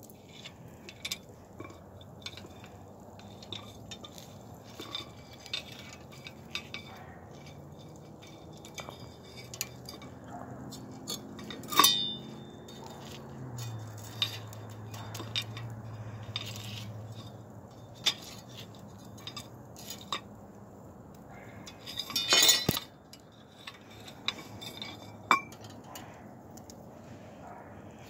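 Light metal clinks and taps of a hinged wire grill basket being unlatched and handled, with tongs on the wire, scattered throughout, and two louder clanks, one near the middle and one about three-quarters through.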